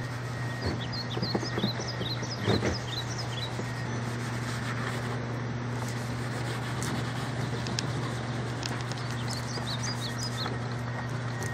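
Small birds chirping in quick runs of short chirps, during the first three seconds and again near the end, over a steady low hum. A few knocks and rubbing sounds of a shed wall being scrubbed by hand with a wet cloth, loudest about two and a half seconds in.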